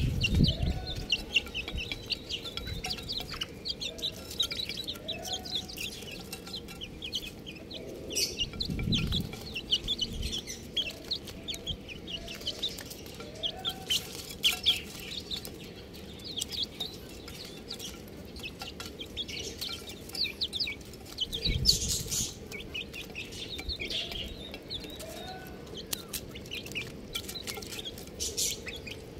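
A group of chicks peeping continuously in rapid, high chirps, with occasional lower clucking calls among them. Twice a brief low rumble comes through.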